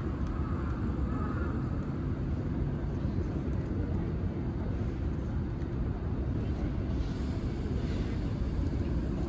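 Outdoor street ambience: a steady low rumble with no distinct events.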